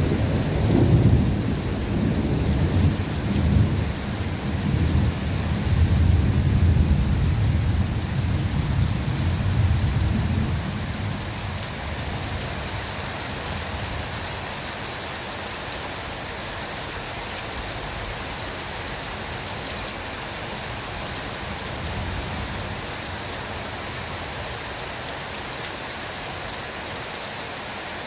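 Steady rain falling in a forest, with a long roll of thunder rumbling low through the first ten seconds or so before it dies away and leaves only the even hiss of the rain.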